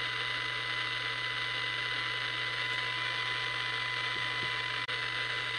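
Open receiver hiss from a Jesan KT002 27 MHz CB walkie-talkie's small speaker, running steadily with a thin steady whine and a low hum under it; the set has no squelch, so the noise never mutes.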